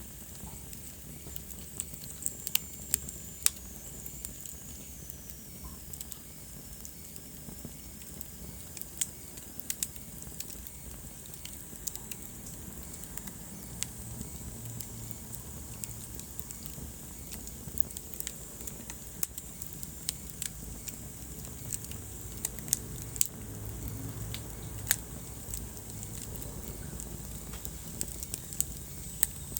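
Wood fire burning in a fireplace: irregular sharp crackles and pops, a few of them much louder, over the low steady rumble of the flames.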